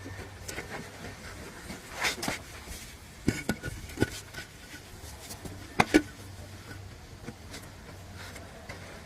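Scattered knocks and sharp taps, the loudest a close pair about six seconds in, over a low steady hum.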